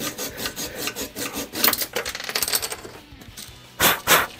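Hand-held diamond saw rasping back and forth in quick strokes through a toilet bolt just above its lock nut. The strokes die away about three seconds in as the bolt is cut through, and two sharp clinks follow near the end.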